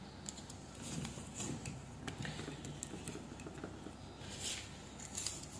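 Aluminium foil tape crinkling and rustling quietly as fingers press and crimp it down onto a circuit board as a heat mask, with scattered small clicks and crackles.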